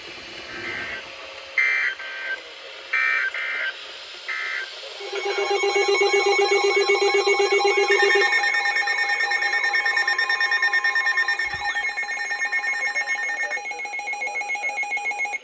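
Emergency Alert System header: three short screeching digital data bursts, then a loud layered alert tone of steady tones mixed with warbling, sweeping beeps for about ten seconds, cutting off abruptly. This is the signal that announces a new weather warning broadcast.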